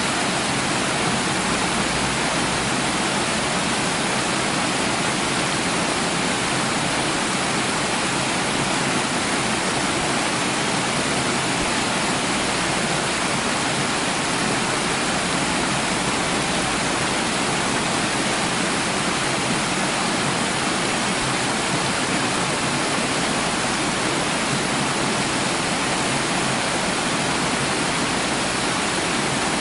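Running water, a steady, even rush that doesn't change.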